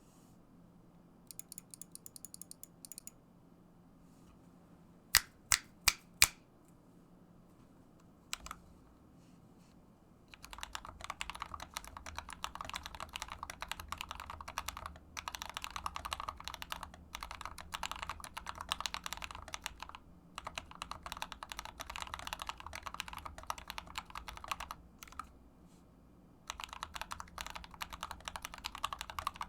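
Typing on a GMMK Compact mechanical keyboard with Krytox 205g0-lubed Akko CS Starfish switches and a foam-filled case. A short run of light keystrokes and four loud, sharp clacks come first. From about a third of the way in there is continuous fast typing with a few brief pauses.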